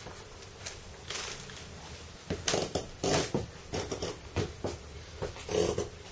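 Irregular scuffs, crunches and clicks of someone moving about on a gritty floor in a small bare room, starting about two seconds in and bunched into a busy run.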